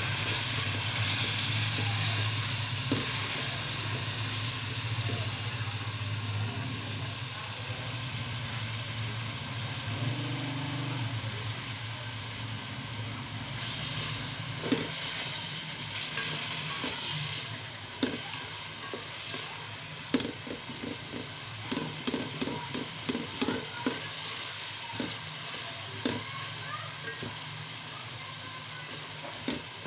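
Onion, tomato and spice masala sizzling in oil in an aluminium degchi while a wooden spoon stirs it, the spoon scraping and tapping against the pot, the taps coming thick and fast in the second half. The masala is being fried down (bhuna) with a splash of water.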